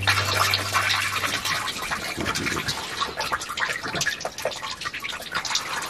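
Oil pouring in a stream from the underside of a Steyr tractor into a drain pan during a hydraulic and transmission filter change. The stream splashes, then gradually weakens toward dripping.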